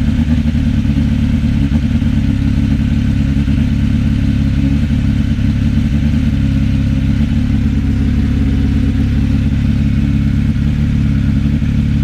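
Suzuki Bandit inline-four motorcycle engine idling steadily through a short stubby exhaust, loud and even with no revving.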